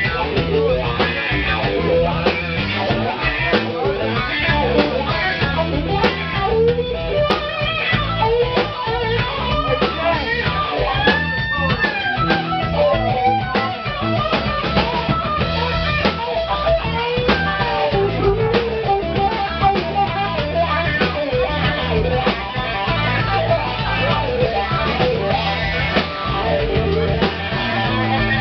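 Live rock band playing: electric guitar lines with bent, wavering notes over bass and drums, including one long held bent note about halfway through.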